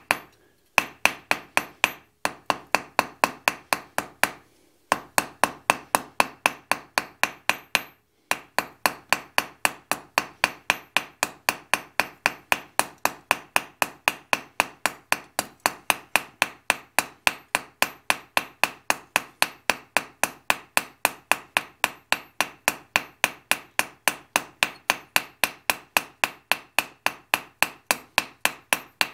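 Hand hammer striking a red-hot steel bar on an anvil in a steady, even rhythm of about three blows a second, each blow ringing. There are short pauses about 2, 5 and 8 seconds in. This is the awl end of a forged marking knife being rounded up.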